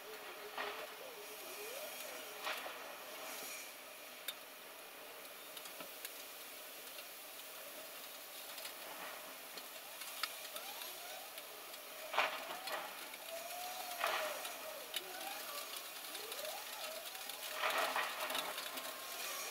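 Steady hiss of rain outside a window, with three short louder rushes in the second half and faint chirp-like glides.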